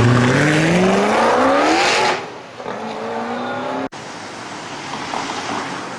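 Koenigsegg CCX's twin-supercharged V8 accelerating past, its revs climbing steadily for about two seconds. The revs then drop and climb again more quietly, and just before four seconds the sound cuts abruptly to quieter street traffic.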